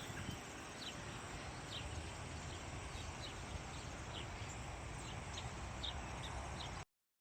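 Faint evening outdoor ambience: short high chirps from birds repeat every half second or so over a steady high insect trill and a low rumble. The sound drops out completely for a moment near the end.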